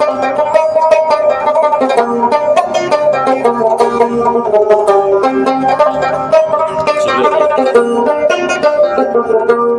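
A plucked string instrument played live, picking a tune in a steady stream of quick notes.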